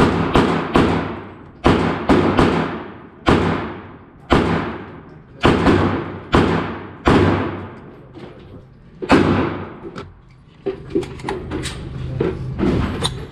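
A Smith & Wesson M&P AR-style pistol fired in semi-auto, about fifteen shots at an uneven pace, each with an echoing tail. The shooting stops after about nine seconds, leaving a few lighter clicks and knocks.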